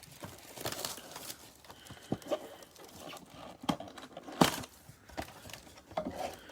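Cellophane-wrapped trading card packs crinkling as they are pulled from a cardboard box, with a string of sharp taps as packs knock onto the table, the loudest about two-thirds of the way through.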